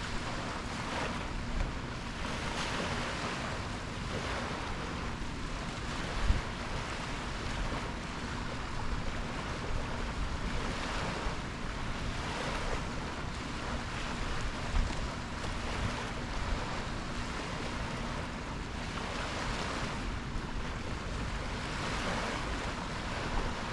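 Ocean waves washing in, a steady hiss that swells every few seconds, with wind buffeting the microphone and a brief low thump about six seconds in.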